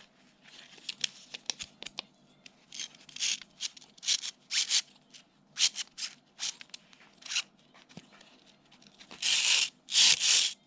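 Plastic and metal parts of an old electronic device being pried apart and snapped off by hand: a string of short cracks, clicks and scrapes, with two longer rasping scrapes near the end.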